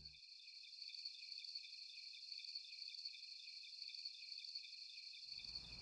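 Crickets chirping faintly, a steady high pulsing trill. A low background hiss comes in near the end.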